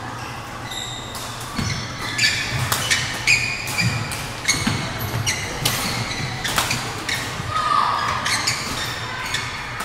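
Badminton doubles rally: repeated sharp racket strikes on the shuttlecock, roughly every half second to second, mixed with high squeaks of court shoes on the sports floor. Spectators chatter underneath.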